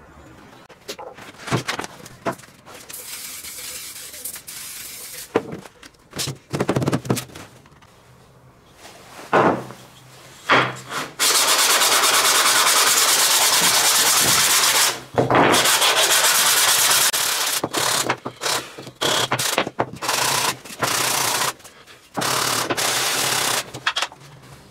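Rubbing across a sheet of sandpaper glued to a wooden board, with a hand and a wooden block, making a scratchy sanding noise. A few short knocks and brief scrapes come first. A long unbroken stretch of rubbing follows, then a run of separate back-and-forth strokes.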